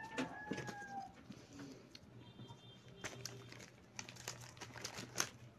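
Plastic snack-cake wrapper crinkling and crackling in the hands in quick irregular clicks.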